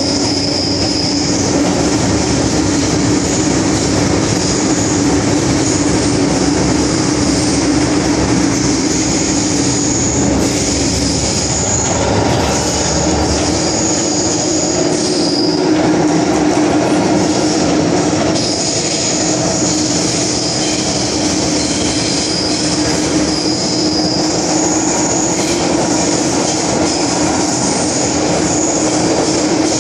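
MTR M-Train electric multiple unit running through a tunnel, heard from inside the carriage: a steady rumble and hum, with high-pitched wheel squeal coming and going.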